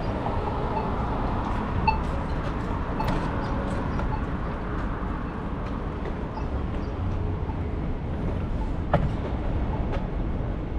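Steady low rumble of a bicycle ride, road and wind noise on the microphone, with scattered small clicks and rattles and two sharp knocks, about two and nine seconds in.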